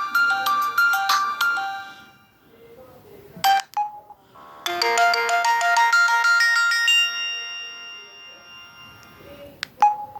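Samsung SGH-M200 mobile phone ringtones playing through the phone's small speaker. One electronic melody of several notes at once fades out in the first two seconds, a short click and beep come about three and a half seconds in, and then another melody plays for about four seconds and fades. A second short click comes near the end as the next tone begins.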